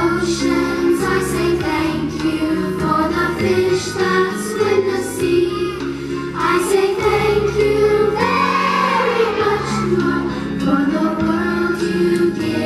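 A group of young children singing a song together over a backing music track.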